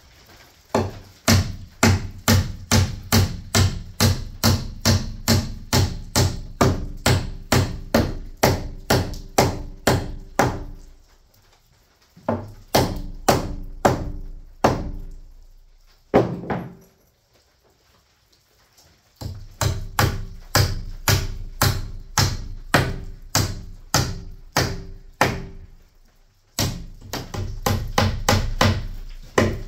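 Hammer driving nails into a wooden timber-frame post: steady blows about two a second, each with a short ringing note, in several runs broken by brief pauses, coming faster near the end.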